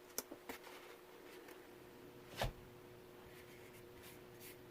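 Faint clicks and taps on a laptop touchpad, with one louder thump about two and a half seconds in, over a faint steady hum.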